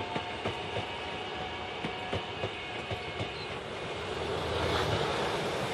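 Incheon Subway Line 1 electric multiple-unit train rolling along, its wheels clacking in a run of sharp knocks over the rail joints. A broad rushing noise swells near the end.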